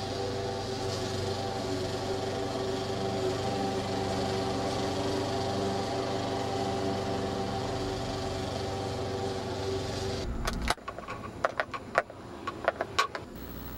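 A small engine or motor runs steadily, then cuts off abruptly about ten seconds in. A string of sharp clicks and knocks follows.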